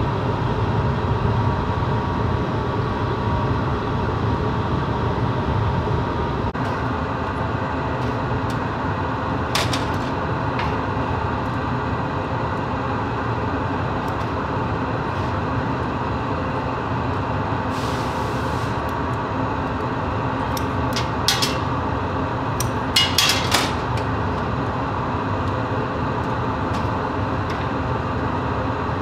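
Steady rushing noise of a glassworks glory hole furnace's gas burner and blower. A few short metal clicks and clinks of glassworking tools break through, once about ten seconds in and in a small cluster a little past the twenty-second mark.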